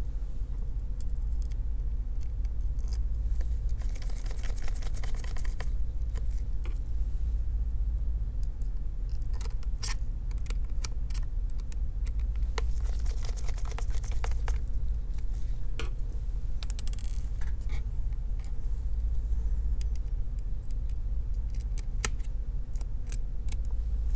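Scattered small metallic clicks and light scrapes from a T4 screwdriver and tiny screws being worked inside an opened MacBook Air laptop, over a steady low hum.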